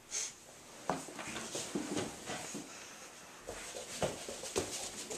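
Scattered light knocks and scuffs at irregular spacing: footsteps and movement in a small room, with rustle from a handheld camera being carried along.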